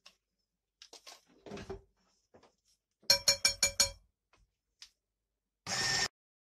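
A dull knock, then a quick run of about seven ringing clinks against a glass mixing bowl a little past halfway, then an electric hand mixer buzzing briefly, under half a second, with its beaters in flour near the end.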